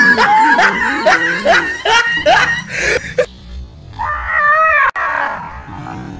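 Dog yelping in a rapid run of short rising cries for about three seconds, then one longer cry about four seconds in.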